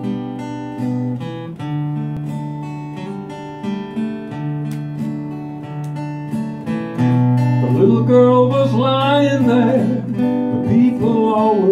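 Acoustic guitar strumming the chords of a gospel song's introduction, joined by a man's singing voice about eight seconds in.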